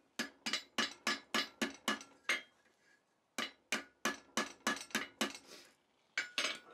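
Hand hammer striking the red-hot jaws of a pair of rivet tongs on a steel anvil block, truing the jaws. There are about three blows a second, two runs of about eight blows with a short pause between and two more near the end, each with a brief metallic ring.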